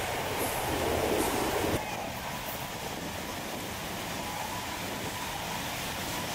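Steady rumble of boat engines on the river, louder for the first couple of seconds, then dropping suddenly to a quieter, even rumble.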